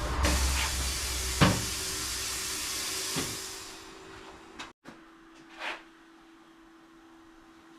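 Air hissing steadily and tapering away to nothing over about four seconds, with a sharp knock about a second and a half in and a few lighter clicks and a short puff later. A faint steady hum runs underneath.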